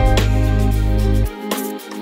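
Background music with sustained notes over a steady bass line; the bass drops out about a second and a half in.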